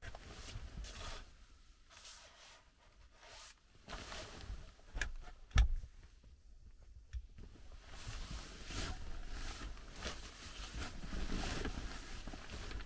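Irregular handling sounds: rustling and scraping with scattered clicks, and one sharp knock about five and a half seconds in.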